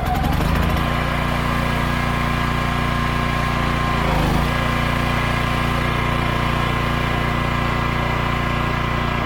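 Briggs & Stratton Vanguard 14 hp V-twin engine on a pressure washer, just started on the electric start and running steadily, with a brief dip in speed about four seconds in. It is being run to warm the oil before an oil change.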